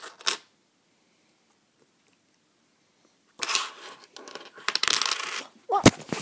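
Coins clinking and rattling on a tabletop: one sharp click just after the start, then about two seconds of busy metallic rattling and scraping, then several sharp clinks near the end.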